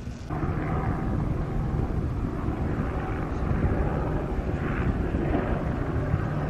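Firefighting helicopter flying overhead, a loud, steady engine and rotor noise that starts abruptly about a third of a second in.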